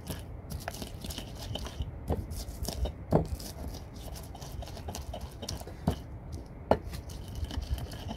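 Stone pestle pounding and grinding shallots, garlic and chillies in a shallow stone mortar: irregular crushing knocks and scrapes, with a few sharper knocks of stone on stone about three, six and six and a half seconds in.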